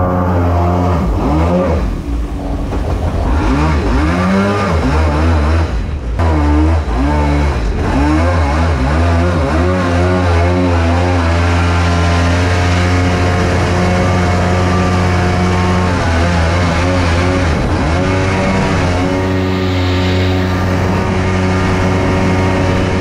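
Supercharged mini jet boat's engine running. Its revs rise and fall repeatedly over the first several seconds, then settle into a steady run at speed.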